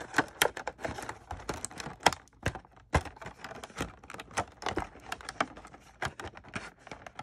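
Cardboard-backed plastic blister pack of an action figure being handled and turned: a run of irregular light clicks, taps and crinkles of card and stiff plastic.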